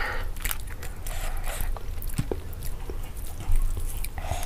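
Close-up eating sounds: wet mouth clicks and chewing, with small ticks as a hand works rice on a steel plate, and one brief louder sound about three and a half seconds in.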